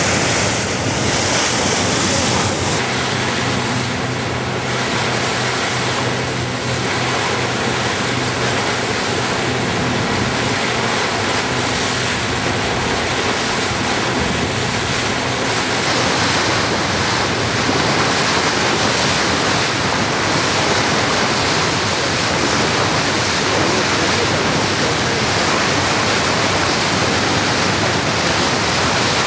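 Steady rush of sea water churned along a moving ship's hull, with wind buffeting the microphone. A low engine hum runs underneath until about halfway through.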